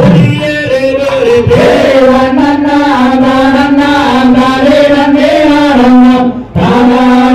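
Amplified valli kummi song accompanying the dance: a voice singing long, held, chant-like lines, with a brief break about six and a half seconds in.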